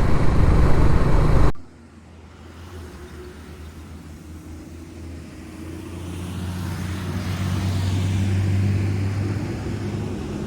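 Wind rush and road noise from riding, cut off abruptly about a second and a half in. Then a steady vehicle engine hum grows louder, peaks about eight seconds in and eases slightly: a road vehicle passing.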